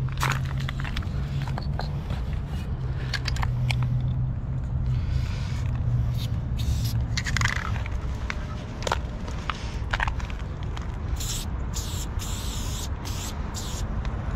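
Aerosol spray-paint can hissing in short bursts, with scattered clicks and scrapes. A steady low hum fills the first half.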